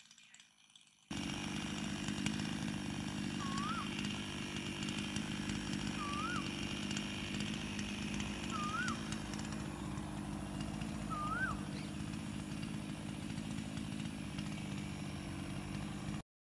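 A steady low mechanical drone with a faint high hum starts abruptly about a second in and cuts off suddenly near the end. Over it an Asian koel calls four times, each a short note that rises and then falls, about every two and a half seconds.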